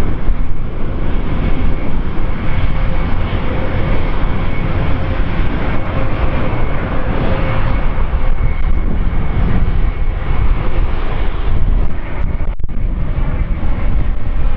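Airbus A350-900 flying past with its Rolls-Royce Trent XWB jet engines: a loud, steady jet noise with a faint steady whine in it.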